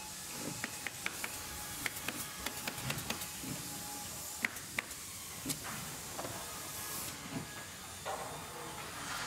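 Cordless Dremel Lite rotary tool running with a sanding drum pressed against a steel hammer head, sanding off rust: a steady high hiss of abrasive on metal with scattered sharp ticks.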